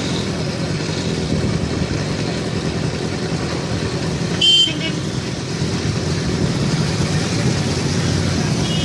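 Steady rumble of motorcycle and scooter traffic on a road bridge, engines and tyres running together. A short vehicle horn toot sounds about four and a half seconds in, the loudest moment.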